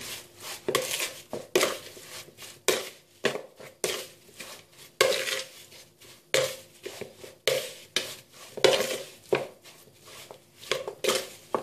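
Metal spoon stirring raw chicken pieces in a dry spice mix, scraping and clinking against the bowl in irregular strokes about two a second.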